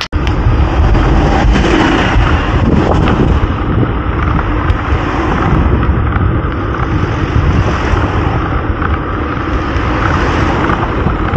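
Wind buffeting the microphone, mixed with the steady noise of cars driving past close by in the road lane alongside.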